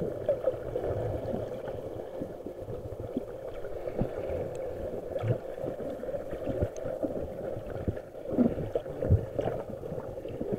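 Underwater sound picked up by a submerged camera: a steady, muffled rush of moving water, with scattered small clicks and knocks.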